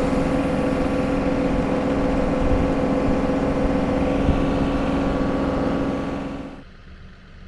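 John Deere 2038R compact tractor running hard, driving the PTO of a three-point stump grinder whose cutting wheel is spinning and grinding into the stump: a loud, steady drone with a constant hum. Near the end it drops off abruptly to a much quieter engine sound.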